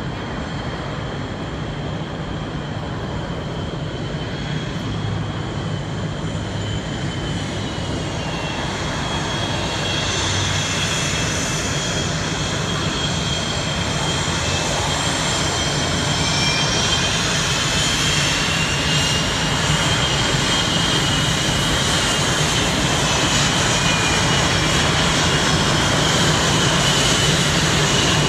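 Jet engines of Blue Angels F/A-18 Hornets running on the ground. A steady rushing noise carries high whines that slide up and down in pitch, and it grows gradually louder.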